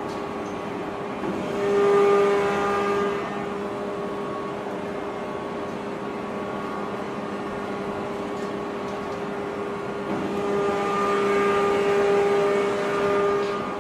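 Heavy forge-shop machinery running with a steady hum and a pitched whine. The whine swells louder twice, about two seconds in and again from about ten to thirteen seconds.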